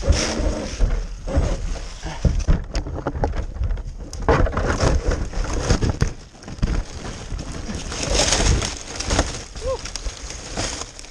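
Close-up rustling, scraping and snapping of twigs and branches against the camera, with knocks of handling noise, as it is pulled free of the branches.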